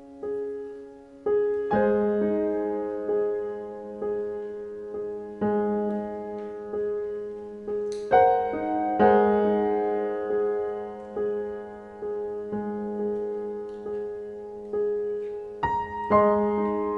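Background piano music: slow, soft notes struck about once a second and left ringing over one another.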